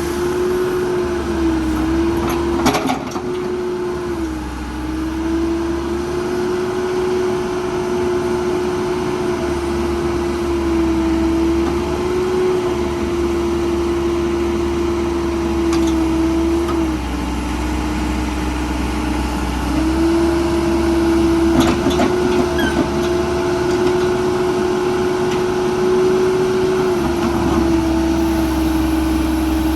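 Cat 416C backhoe loader's diesel engine running steadily, its speed dipping slightly and recovering several times. A couple of sharp clicks come through near the start and about two-thirds in.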